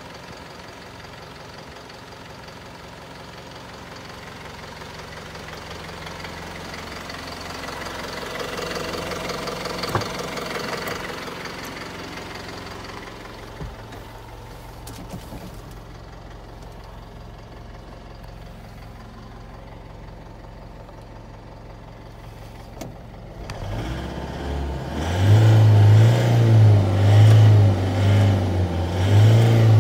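Isuzu Elf truck's engine idling steadily, then revved several times in neutral near the end, each rev swelling up to about 3,000 rpm and dropping back.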